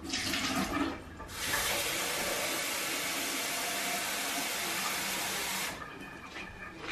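Water running from a tap into a sink. A short first run lasts about a second, then a steady run of about four seconds stops suddenly.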